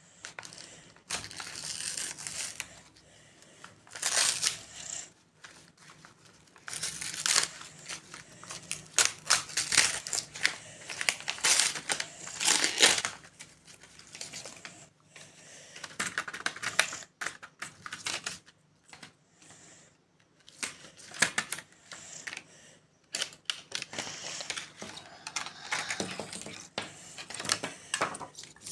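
Paper and plastic wrapping rustling and crinkling in irregular bursts as a paper gift packet is torn open and a pack of highlighter pens is unwrapped.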